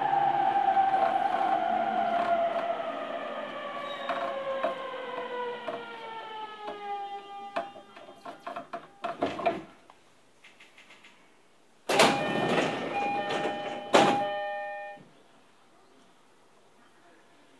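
Inverter and traction motors of an equipment-updated E231-series EMU, heard from the car floor, whining down through several falling tones as the train brakes to a stop; the whine dies away and a few knocks come as it halts. About twelve and fourteen seconds in come two loud bursts of hissing air with a multi-tone chime: the doors opening.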